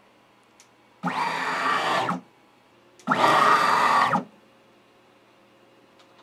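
Stepper-motor-driven CNC mill axis making two rapid traverse moves, each lasting about a second, with a whining motor and screw drive that starts and stops sharply. The axis runs smoothly on a repaired DQ542MA stepper driver: it works fine again.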